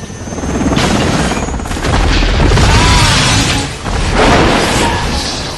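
Film sound mix of a helicopter crash: heavy booms and crashing, rumbling noise in several loud surges, with music underneath.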